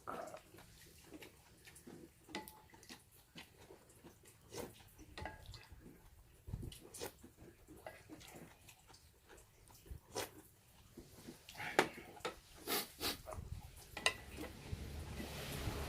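Ramen being eaten from a metal basin: irregular clicks and knocks of chopsticks against the metal, with scattered slurping and chewing. A soft hiss rises near the end.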